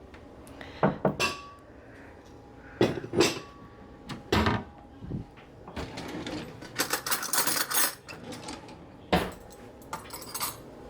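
Kitchen dishes and utensils clinking and knocking: scattered sharp clacks, with a quick run of clatter about seven seconds in.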